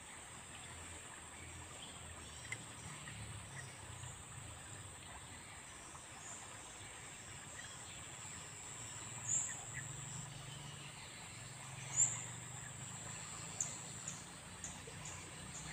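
Quiet riverside outdoor ambience with a steady high-pitched hum. A few short bird chirps stand out, the loudest about nine and twelve seconds in, and smaller ones come near the end.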